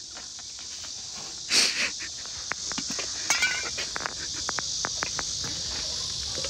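Steady high-pitched insect chorus, with one loud, short breathy burst about one and a half seconds in, a brief warbling chirp a little past three seconds, and scattered light clicks.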